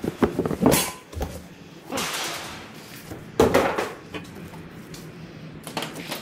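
Unpacking noises: cardboard boxes and packing rustling and scraping, with knocks from the press brake's black steel stand parts being moved. The loudest is one clunk about three and a half seconds in.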